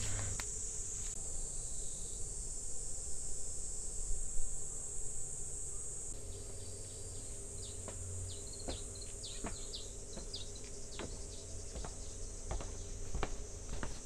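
Insects trilling in a steady high chorus. Short high chirps and a few light knocks come in during the second half.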